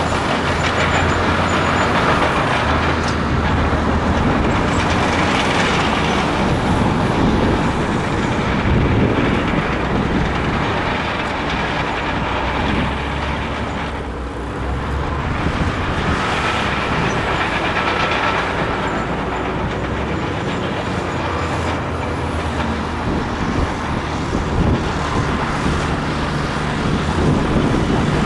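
Large crawler bulldozer working: its diesel engine runs steadily under load amid the clatter and grinding of steel tracks and blade pushing stone, easing off briefly about halfway through.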